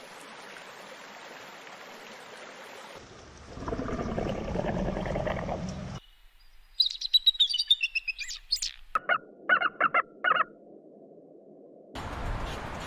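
Short animal-sound clips cut one after another. The loudest is a rapid run of high bird-of-prey calls, each falling in pitch. Four short, sharp calls follow it.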